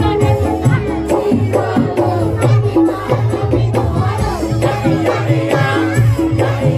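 Loud dance music with a steady, driving drum beat and a wavering melody line over it.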